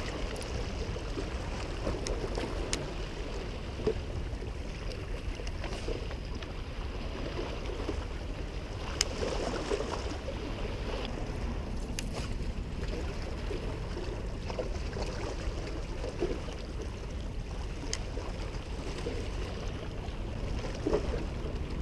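Small waves lapping against shoreline rocks, under a steady low rumble of wind on the microphone, with a few short clicks.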